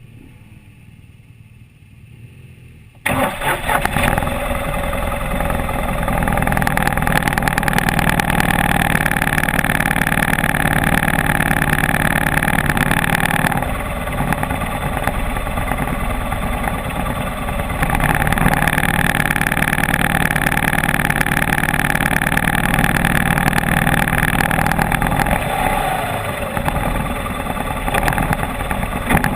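Off-road motorcycle engine running, coming in suddenly about three seconds in and then holding steady. It eases off twice in the middle and near the end.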